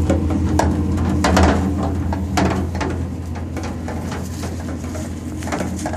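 Stirring pole knocking and scraping inside a plastic digester vessel as thick digestate is stirred and the bottom scraped, in irregular knocks and clicks. A steady low hum runs underneath.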